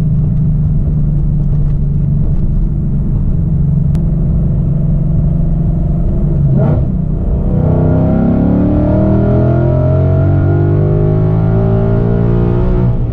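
Ford Mustang GT's V8 engine running with a steady low drone, then accelerating from about seven seconds in, its pitch climbing.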